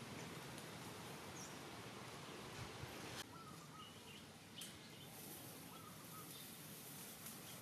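Faint outdoor background: a steady hiss with a few brief, faint chirps scattered through it. The hiss drops a little about three seconds in.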